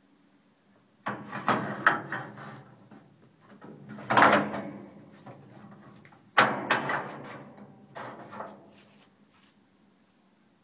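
Heavy steel cooker lid and its fittings clanking and rattling as they are handled: four sudden loud clanks, each followed by a short rattle that dies away.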